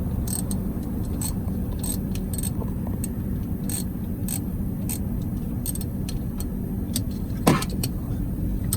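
Light metallic clicks and clinks of hand tools working on a semi truck's starter wiring, over a steady low rumble. One louder, sharper clink with a quickly falling pitch comes about seven and a half seconds in.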